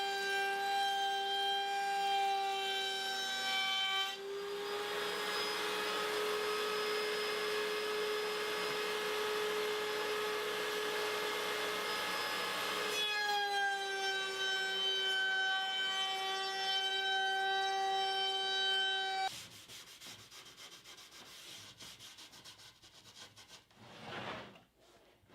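Stationary power woodworking machine running with a steady whine. From about four to thirteen seconds in it cuts through a maple board, adding a loud rushing noise. The machine sound stops suddenly about nineteen seconds in, leaving faint rubbing on wood.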